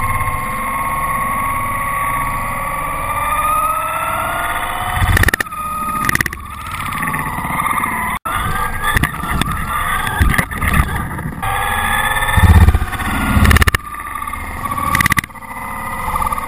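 Traxxas Slash RC truck's electric motor whining, its pitch rising and falling as the truck speeds up and slows, with tyres hissing through puddles, heard from a camera mounted on the truck. Several sharp knocks and thumps come in the second half as the truck bumps and splashes through water balloons.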